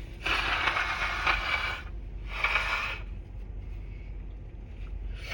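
A person blowing a runny nose into a tissue during a head cold: a long blow of about a second and a half, then a shorter second blow.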